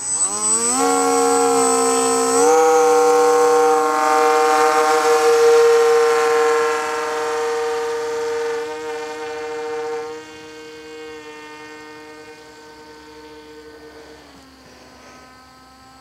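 Electric motor and propeller of a foam RC model plane spooling up for a hand launch: a steady, high buzzing whine that rises in pitch in the first second and again a couple of seconds in. It gets quieter about ten seconds in and dips slightly in pitch near the end as the plane flies farther off.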